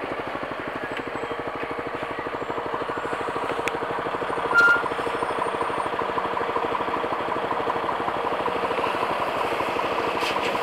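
Honda CBX 250 Twister's single-cylinder four-stroke engine idling steadily, with a fast even pulse, while traffic passes. A brief, louder high note cuts in about four and a half seconds in.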